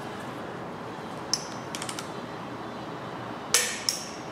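Click-type torque wrench being pulled on a cylinder head bolt. A few light clicks, then a sharp, loud click about three and a half seconds in and a second one a moment later: the wrench breaking over at its 75 ft-lb setting.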